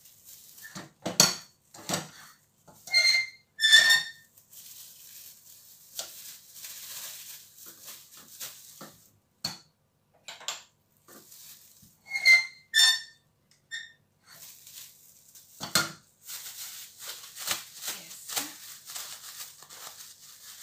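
A spoon knocking and scraping against a steel cooking pot while fufu is scooped out: a string of sharp knocks, several of them ringing, in clusters with quieter stretches between. Soft rustling of a plastic bag between the knocks.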